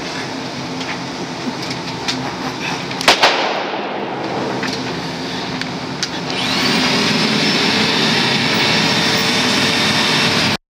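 Engine running steadily, with a sharp knock about three seconds in; about six and a half seconds in it gets louder with a rising whine, as if revved, then the sound cuts off suddenly near the end.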